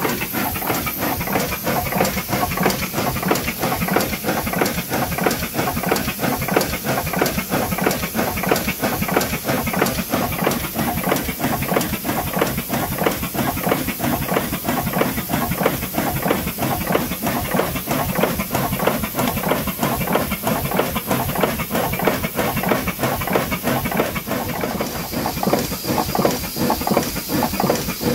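Ward three-cylinder radial triple-expansion steam engine running steadily: hissing steam over a rapid, even beat from its strokes.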